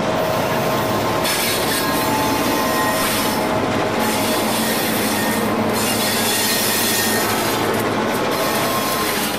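Model train led by EMD GP diesel locomotives rolling close past on layout track: a steady rolling noise of wheels on rail.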